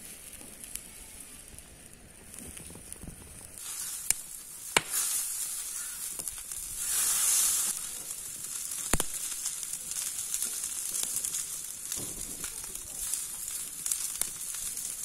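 Pieces of raw lamb sizzling as they are laid one by one on a hot sac, a convex steel griddle over a wood fire. The sizzling starts a few seconds in and swells to a loud hiss about halfway. A few sharp clicks stand out.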